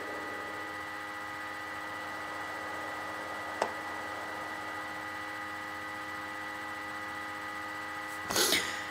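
Steady electrical hum made of several fixed tones over a faint hiss, with a single sharp click about three and a half seconds in and a brief breathy burst near the end.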